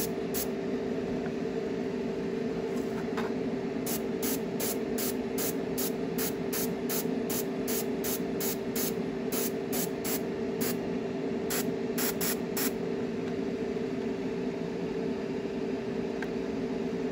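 Dual-action airbrush spraying weathering paint in short hissing bursts, about two a second through the middle, over a steady hum.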